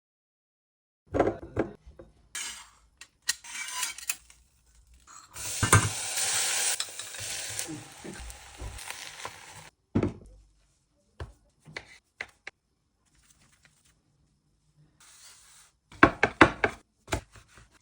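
Kitchen utensils clinking and knocking against pans and dishes, with a few seconds of steady sizzling in the middle and a quick run of knocks near the end.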